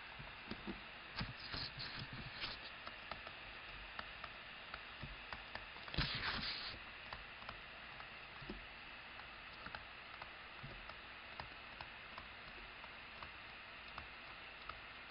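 Faint light taps and scratches of a stylus writing on a tablet screen, over a steady background hiss, with a louder brief scratchy rustle about six seconds in.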